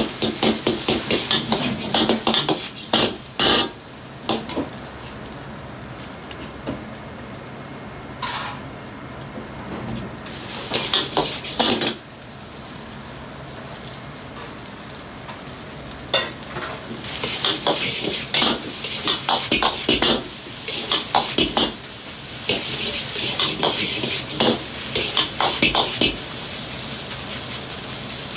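Metal ladle scraping and clanking against a wok as egg and rice are stir-fried, with the rice sizzling. The ladle strokes come in quick runs with quieter stretches between, and are busiest in the second half.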